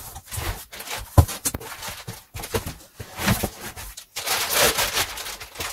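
Cardboard box flaps being pulled open and plastic wrapping rustled by hand during unpacking, with scattered handling knocks, the sharpest about a second in. A longer rustle of plastic sheeting comes near the end.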